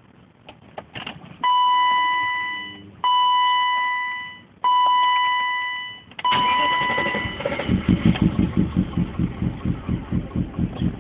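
Dashboard warning chime in a BMW E34 530i sounding three and a half times as the key is turned, then the engine starts about six seconds in and idles rough with an uneven, lumpy pulsing. The owner hears a knock from the driver's side of the engine and suspects something in a cylinder or fouled spark plugs.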